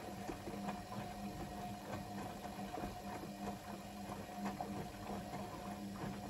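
ATLANT 45Y82 front-loading washing machine in its main wash: the drum motor hums steadily while wet cotton laundry and soapy water tumble and slosh in the turning drum, with small irregular splashes and knocks.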